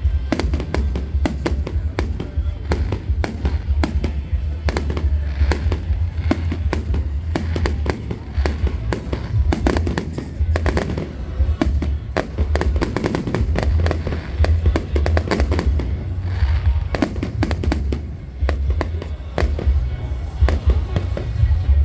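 Fireworks going off in a rapid, continuous series of bangs and crackles, many overlapping, over a steady low rumble.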